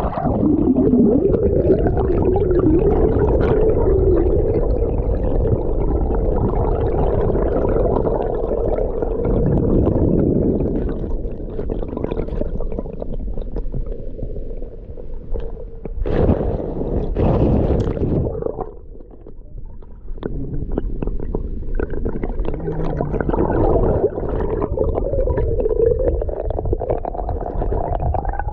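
River water heard through a submerged camera: low rumbling and gurgling with a steady droning hum that wavers in pitch, which the kayakers jokingly call an 'underwater engine'. A louder rush of water comes about two-thirds of the way through.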